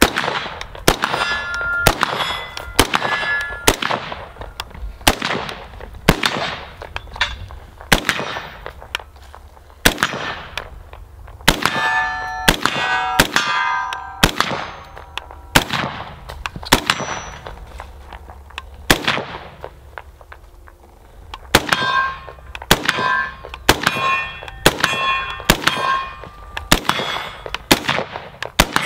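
A .223 AR-15 with a Bear Creek Arsenal upper firing steady semi-automatic shots, about one a second and quicker near the end. Steel targets ring after the hits.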